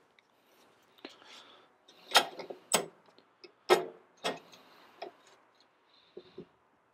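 Steel lid lifter knocking and clinking against the cast-iron lid of a Dutch oven as it is hooked under the lid handle: a string of sharp metallic knocks, the loudest a little after two seconds and near four seconds, with a quick double knock near the end.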